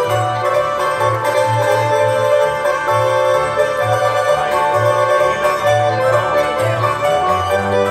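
Live Swiss folk instrumental music from a small ensemble: hammered dulcimer (Hackbrett), violin, accordion and double bass playing together, the bass marking a steady beat.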